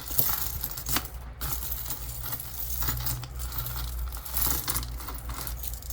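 Mixed costume jewelry, metal chains and pieces, clinking and jangling as a hand rummages through a bucket of it, a rapid run of small metallic clicks.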